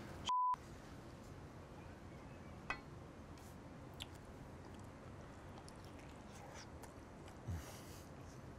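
A brief steady beep about a third of a second in, a censor bleep laid over a word. Then quiet chewing of a bite of burger, with a few faint clicks and a soft thump near the end.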